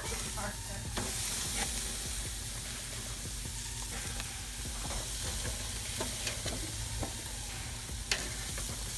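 Porterhouse steak sizzling on a hot grill, a steady hiss with scattered small pops of spitting fat.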